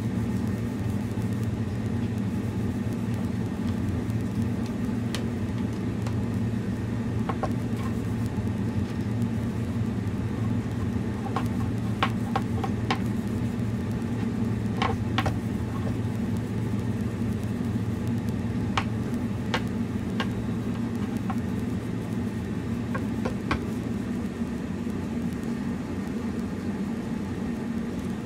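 A steady low machine hum, with scattered light clicks and taps as a wooden walking stick is handled and rubbed with a rag; the deepest part of the hum stops about 24 seconds in.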